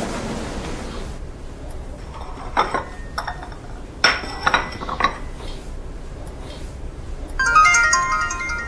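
Porcelain coffee cups and saucers clinking as they are set down, several light clinks in quick succession. Near the end, a short run of stepping electronic tones.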